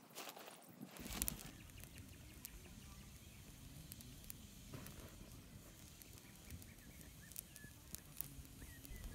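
A brief rustle of tent fabric being folded, then faint, sparse crackles and pops from a small smoking twig fire over a low steady rumble.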